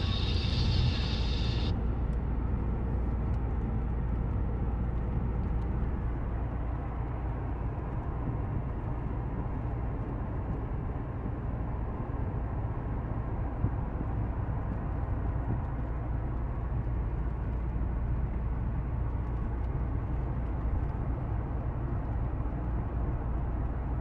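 Car cruising on a motorway, heard from inside the cabin: a steady low rumble of road and engine noise. A higher hiss over it cuts off less than two seconds in.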